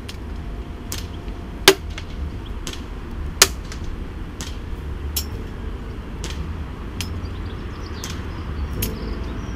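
Airsoft BBs from a gas blowback M4 striking on and around a mannequin target: a string of sharp ticks and taps at uneven intervals. Two of them, about a second and a half and three and a half seconds in, are much louder than the rest. A low wind rumble on the microphone runs under them.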